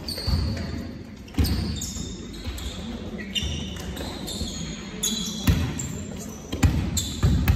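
Volleyball rally in a sports hall: about six sharp hits as the ball is struck by hands and forearms, with short high squeaks from players' trainers on the court floor, ringing in the large hall.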